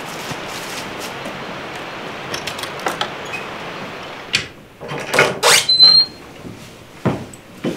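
A steady rushing background noise. About four seconds in it gives way to a run of wooden knocks and clatters, with a short high squeak, typical of a barn door and a metal bucket being handled in a wooden cow barn.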